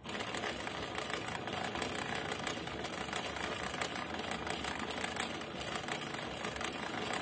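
A coil winding machine spinning an angle grinder armature fast. Its gears whir and rattle, and loose strands of the old copper winding whip around the armature. The loud, steady noise starts abruptly and holds level.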